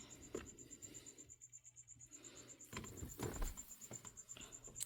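A cricket chirping faintly, a high, fast, even train of pulses, with a few brief handling rustles and knocks about three seconds in.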